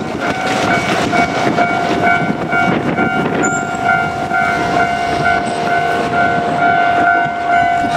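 A container freight train rolling past, with wheels clattering and rumbling on the rails. A level crossing warning bell rings steadily and rapidly throughout.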